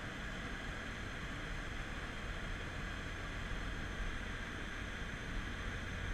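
Steady cabin noise inside a BMW F10 M5 driven on a track: a low, even engine drone under a hiss of tyre and wind noise.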